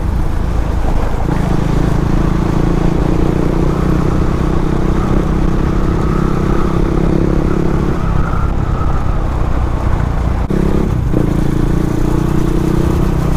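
Motorcycle engine running steadily while riding at speed, with wind noise on the helmet-mounted microphone; the engine note steps up about a second in and breaks briefly near the end.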